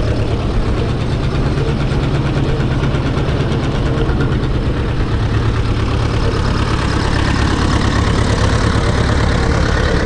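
Ursus C-360's four-cylinder diesel engine running steadily during a dynamometer power test, naturally aspirated with its turbo disconnected.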